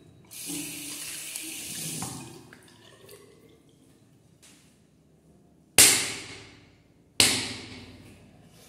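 Two sharp smacks of a thin cane striking an open hand, about a second and a half apart, each followed by a trailing echo. Near the start, about two seconds of hissing rustle come before them.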